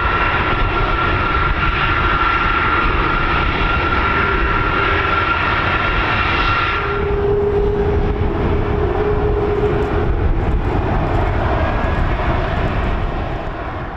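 RC-135W Rivet Joint's four CFM56 turbofan engines running at taxi power: a low rumble with a steady high whine that drops away about halfway through as the aircraft turns, after which a lower steady tone comes through for a few seconds.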